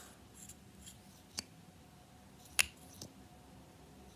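Lip gloss cap twisted off and the wand pulled out of its tube, giving only a few faint clicks, the loudest about two and a half seconds in, and hardly any pull sound: basically can't even hear it.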